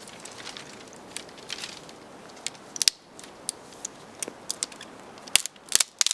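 Dry branches cracking and clattering as they are tossed down and laid into a layer: a quick irregular series of sharp snaps, the loudest about three seconds in and a cluster near the end.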